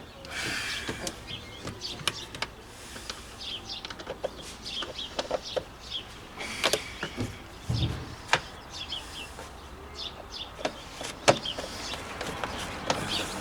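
Scattered clicks and knocks of plastic parts being unclipped and handled while the air filter box on a Chevrolet Silverado's 5.3 V8 is opened, with one heavier thump about eight seconds in. Birds chirp in the background.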